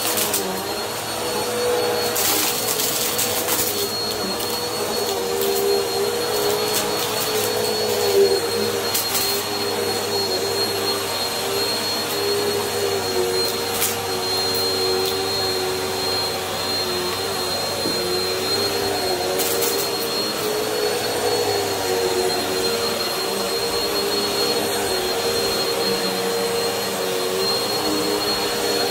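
Bissell CleanView bagless upright vacuum cleaner running on carpet: a steady motor hum with a thin high whine above it, its pitch wavering slightly as it is pushed back and forth. A few brief crackles come now and then.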